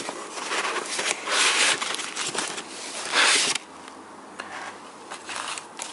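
Cardboard and packing material of a hard drive box being handled and pulled about, rustling and scraping. The two loudest stretches come about a second and a half in and around three seconds in, with small clicks and quieter rustling between and after.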